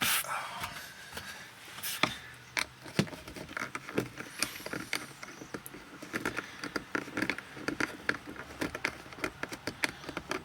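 Many small clicks, taps and scrapes of hands working a car's rear deck speaker loose: screws being undone and the speaker and plastic trim being handled.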